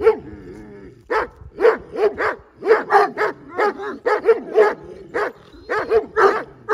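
Dog barking repeatedly, short sharp barks coming two or three a second, with a brief pause about half a second in.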